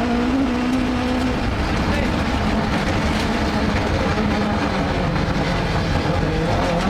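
Rally car engine heard from inside the cabin, running hard at fairly steady revs with heavy road and gravel noise, the engine note easing a little near the end.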